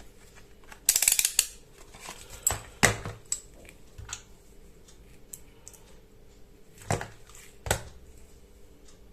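Small clicks, taps and a short rattling burst about a second in, with a few sharp knocks later, from handling a multimeter's probes and a fuse during a continuity test. No continuity beep sounds: the fuse is open.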